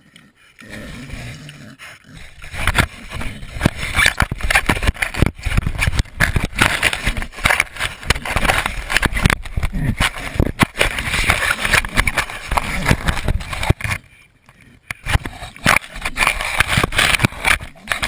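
Pigs nosing, mouthing and shoving a small camera lying on the ground: a dense run of scraping, knocking and rubbing right on the camera, with a short lull about fourteen seconds in.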